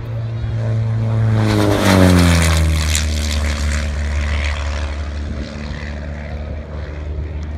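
Propeller aerobatic plane making a fast, low pass. Its engine and propeller grow to their loudest about two seconds in, the pitch dropping sharply as the plane goes by, then settle into a steadier, lower drone as it flies away.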